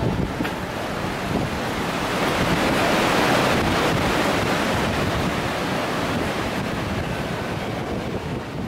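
Sea surf washing against rocky cliffs, with wind. The rush swells to its loudest about halfway through, then slowly eases.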